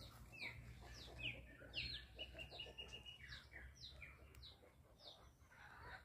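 Small songbirds chirping faintly: many quick, downward-slurred chirps, with a short run of evenly spaced notes on one pitch about two seconds in.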